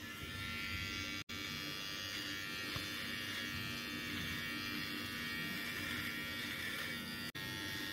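Xiaomi Grooming Kit Pro electric trimmer running steadily with a buzzing hum as its main blade, fitted with a comb guard at setting 2, is drawn through beard stubble under the jaw. The hum breaks off for an instant twice, about a second in and near the end.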